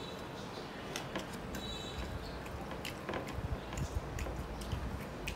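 Close-up eating sounds from a man eating rice with fried mutton by hand: chewing with irregular wet mouth clicks and smacks, and fingers squishing the rice on the plate.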